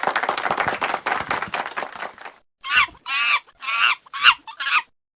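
A dense clattering noise fades out about two seconds in. Then an animal gives five short, high calls in quick succession, each falling a little in pitch.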